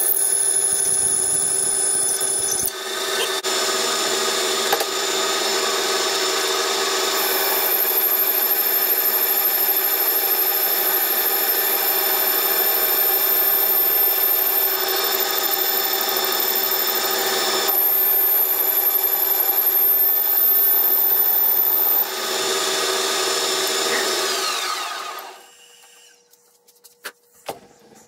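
Metal lathe running while cutting steel, starting with a 1-inch drill bit fed into the work from the tailstock: a steady whine of several tones from the motor and gearing, with a thin high whine above it. About 24 seconds in, the lathe is switched off and its tones slide down as it spins to a stop, followed by a few light clicks.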